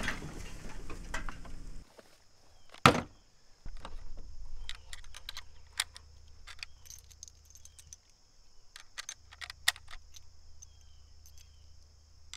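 Metallic clicks and clacks from a Mosin Nagant M44 bolt-action rifle as it is picked up and handled at the action, with one sharp knock about three seconds in. A steady high insect buzz runs underneath.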